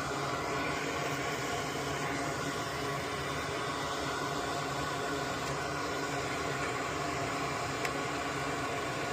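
Steady mechanical hum with an even hiss, like a small fan or motor running continuously, with no change in pitch or level.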